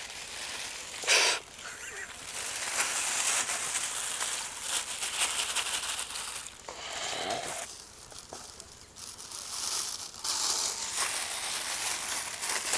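Thin polythene bags crinkling and rustling irregularly as they are handled, opened out and fitted one inside another.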